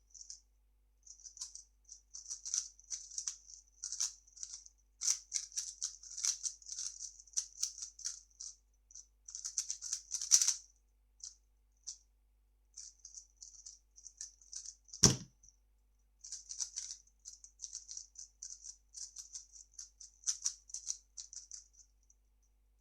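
A 3x3 speedcube being turned rapidly by hand: dense runs of light plastic clicks and rattles, broken by short pauses. One sharp thump about fifteen seconds in.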